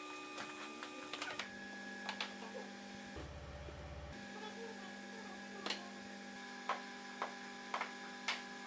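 Scattered light clicks of handmade mahjong tiles being handled and set down on the table, over a steady hum.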